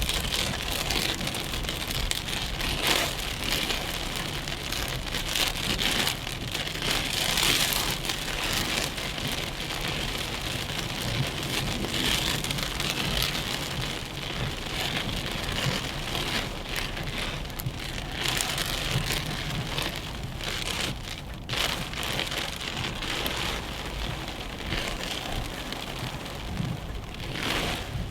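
Rain falling steadily on a car being driven, with a low rumble of the car underneath.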